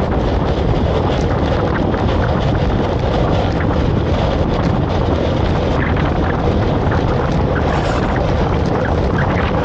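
Steady, loud wind noise buffeting the microphone, heaviest in the low end.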